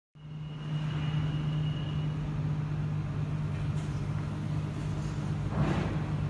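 Steady low engine hum, like an idling vehicle, with a faint high whine over the first two seconds and a short rush of noise about five and a half seconds in.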